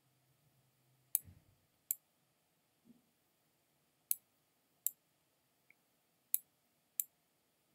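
Computer mouse button clicking: six sharp clicks in three press-and-release pairs, each pair under a second apart, as objects are clicked and dragged.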